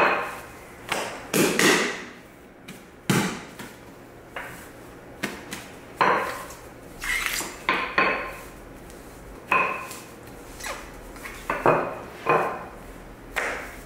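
Rolling pin knocking and clacking against the work surface as bread dough is rolled out, about a dozen irregular knocks.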